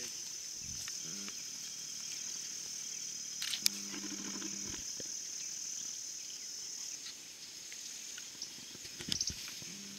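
Steady high-pitched chorus of rainforest insects, with a short low hum from a voice about four seconds in and a few sharp clicks, the loudest just before that hum and another cluster near the end.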